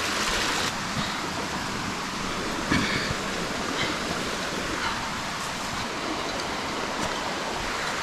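Mountain stream water rushing steadily, with one soft knock just under three seconds in.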